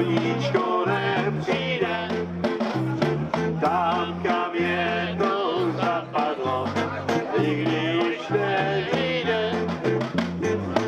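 Small acoustic street band playing an upbeat old-time tune: voices singing over strummed guitars, a stepping bass line and cymbal-and-drum percussion.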